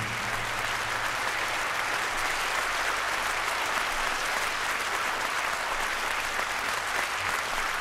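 Audience applauding at a steady, even level.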